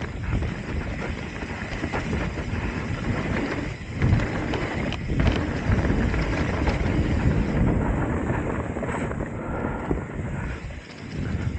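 Trek Top Fuel 8 mountain bike descending a dirt forest trail: knobby tyres rolling over dirt and roots, with the bike clattering and knocking over bumps. Wind buffets the microphone throughout.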